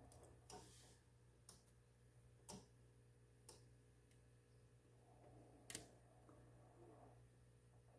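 Liebherr SKBes 4213 refrigerator giving faint, sharp clicks, about one a second four times, then a louder click near six seconds in, over a steady low hum. The owner wonders whether the clicking comes from a relay.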